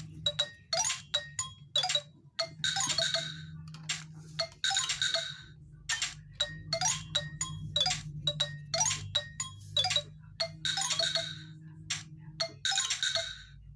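Nokia 105 (2013) ringtone playing: a chime-like melody of quick, bright struck notes, with a longer shimmering chime stroke every couple of seconds.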